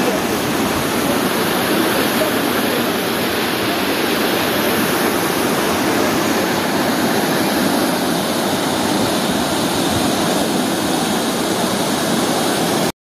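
Fast-flowing mountain river rushing over boulders in shallow rapids: a steady rush of water that cuts off suddenly at the very end.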